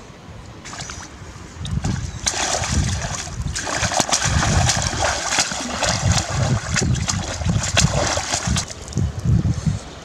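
Loud, irregular splashing in shallow river water as a duck is plunged and worked in it by hand, starting about two seconds in and dying down just before the end.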